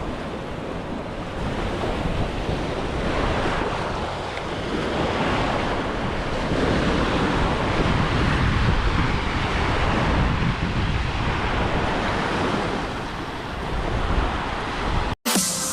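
Surf washing onto a beach in slow swells, with wind buffeting the microphone and adding a low rumble.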